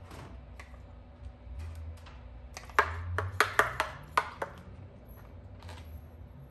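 A quick run of about six sharp clicks and light metal clanks over a second and a half, from hands working a spray bottle and the metal grill it sits at.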